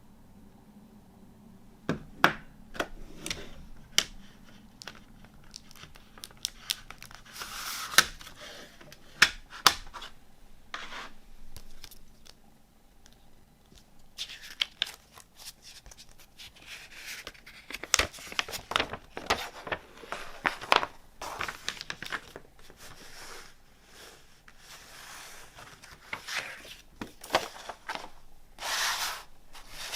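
CD packaging being unwrapped by hand: plastic wrapping torn and crinkled, with many sharp clicks and taps in between.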